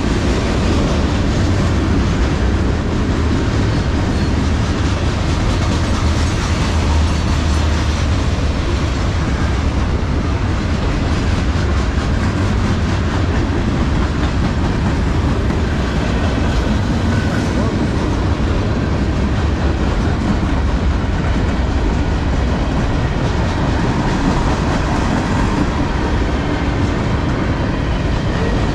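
Freight cars rolling past close by: a steady rumble of steel wheels on the rails with clickety-clack over the rail joints.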